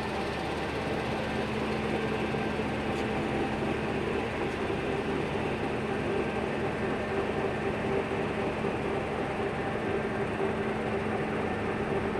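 Steady mechanical hum of running machinery, with a constant low drone and a higher tone held over an even rush of noise.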